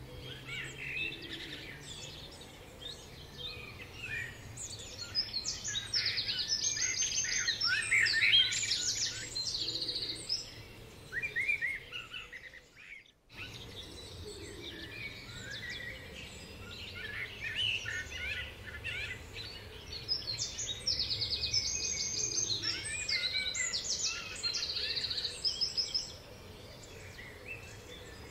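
Songbirds singing: many chirps and fast, high trills in two busy stretches. The sound cuts out for a moment about halfway through.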